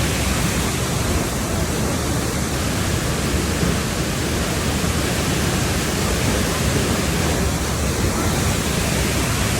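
Waterfall, its water falling and rushing in a steady, unbroken roar.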